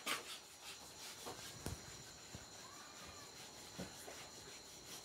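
Pot of pork-leg palo stew simmering under a glass lid: faint bubbling with a few soft pops scattered through.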